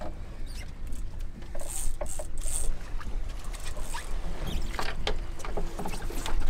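Small boat at sea: a constant low rumble with a faint steady hum, and scattered knocks and clicks of gear being handled on deck.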